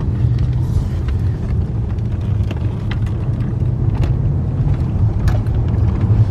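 Car being driven, a steady low rumble of engine and road noise as heard from inside the cabin.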